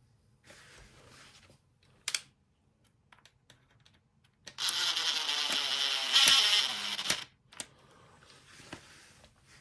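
Handling noises and a sharp click, then a small power tool such as a cordless screwdriver runs for about two and a half seconds and stops abruptly.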